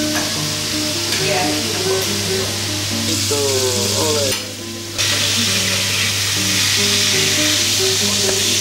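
Chopped asparagus frying in oil in a pan, a steady sizzling hiss as it is stirred, which drops out briefly about halfway through. A melody of pitched notes plays underneath.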